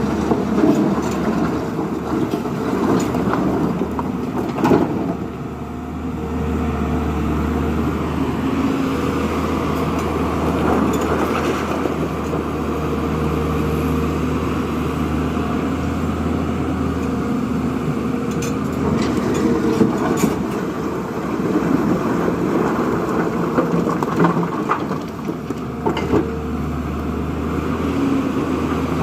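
Diesel engine of a JCB 3DX backhoe loader running steadily while working, with a few sharp metallic knocks.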